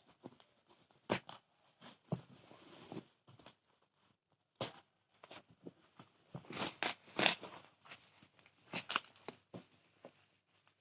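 Parcel packaging being handled and torn open: irregular rustling and sharp crackles, with louder bursts about a second in, in the middle and near the end.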